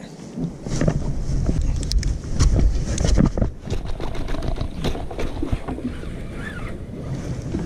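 Wind rumbling on the microphone, with scattered clicks and knocks from handling a spinning rod and reel on a kayak while reeling in.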